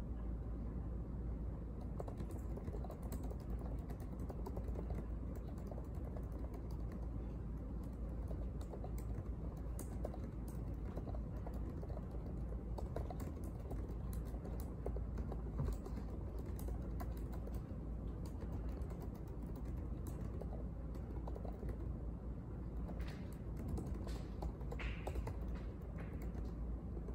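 Typing on a laptop keyboard: irregular light key clicks, a few louder ones near the end, over a steady low room hum.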